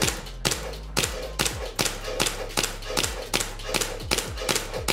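TTI Sand Viper 2011 Hi-Capa gas blowback airsoft pistol fired in a rapid, even string of about two and a half shots a second, each a sharp crack as the slide cycles: a mag dump emptying the magazine.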